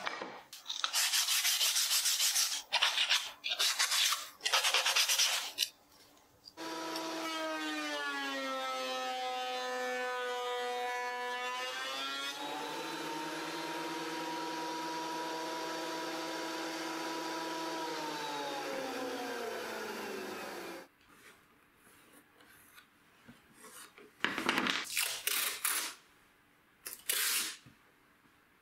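Paper being torn and peeled off wood in several loud rasping bursts. Then a benchtop thickness planer runs, its pitch sagging under load as a board feeds through, holding steady, and winding down after it is switched off. Near the end, masking tape is ripped off the roll in short strips.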